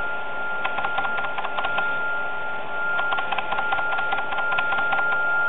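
ShopBot CNC router's Z-axis stepper drive slowly lowering the router head toward the zeroing plate with the spindle switched off, as part of the automatic Z-zeroing routine. It gives a steady high whine with a dense, irregular clicking over it.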